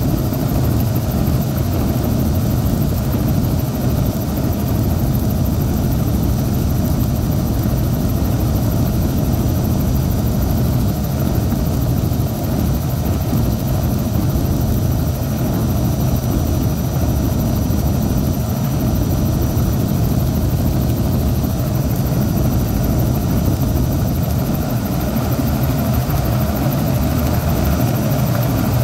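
Helicopter engine and rotors running steadily, heard from inside the cabin: an even, loud low drone with a faint steady high whine over it.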